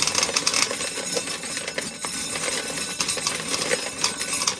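Dry corn being shelled: a steady rattle of many small clicks as kernels strip off the cob and clatter together.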